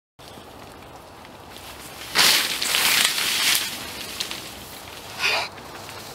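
Rustling, crackling noise over a steady hiss: a loud swell about two seconds in lasting about a second and a half, then a shorter rustle about five seconds in.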